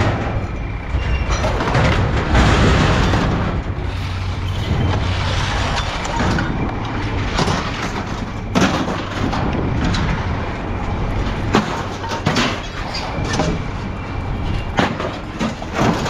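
Heavy scrap steel, such as brake rotors and motors, being thrown out of a truck onto a scrapyard pile: repeated clanks and thuds at irregular intervals over a steady low rumble.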